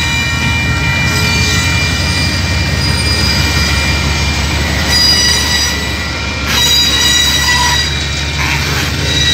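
KiwiRail DX-class diesel-electric locomotives passing close by at a level crossing: a steady low engine drone under a row of steady high ringing tones that last throughout.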